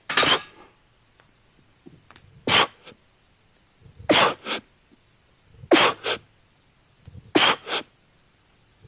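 A man's sharp, forceful exhalations during a workout exercise, five of them, one every second and a half to two seconds, the later ones coming as a quick double puff, some with a short grunt.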